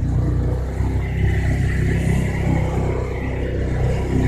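Engine of an off-road vehicle running steadily, heard from inside its cab.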